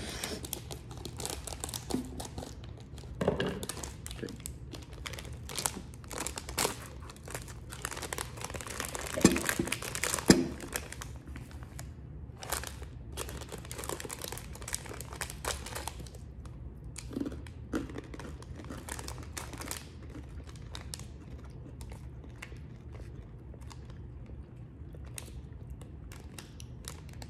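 A bag of red chili pistachio brittle being opened and handled: crackly bag rustling in many short bursts, busiest in the first half and sparser later, over a faint steady low hum.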